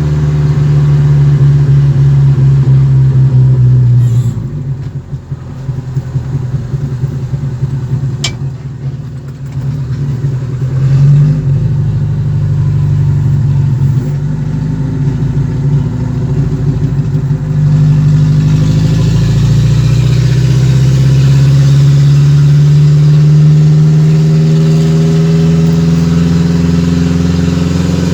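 Ford Maverick's 2.3-litre OHC four-cylinder engine running and rumbling loudly. Its note drops lower and quieter about four seconds in, comes back up briefly near the middle, then climbs slowly in pitch through the second half.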